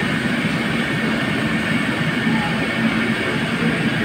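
Steady rushing noise with a low hum underneath, from kitchen equipment running while food steams.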